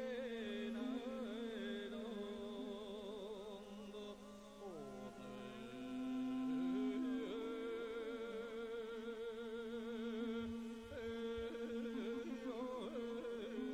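Mongolian wrestling attendants (zasuul) chanting long drawn-out sung calls with a strong wavering vibrato, more than one voice overlapping.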